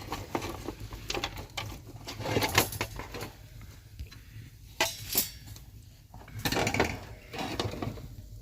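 Irregular clinks and knocks of hard objects being handled, in several denser clusters: about two seconds in, around five seconds, and again between six and a half and seven and a half seconds.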